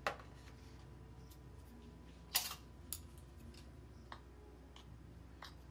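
A metal spoon clinking and tapping against a plate a few times as it stirs flour and ground spices together; the loudest clink comes about two and a half seconds in, over a faint steady hum.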